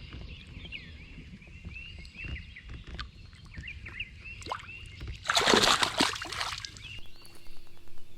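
A largemouth bass released from the hand splashes into the lake once, about five seconds in, a short loud splash. Short repeated chirps run before it, and a faint steady hum comes in near the end.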